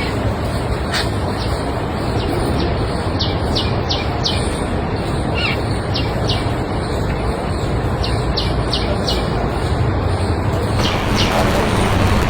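A small bird chirping: short, quick downward chirps repeated many times in runs, over a steady rushing background noise.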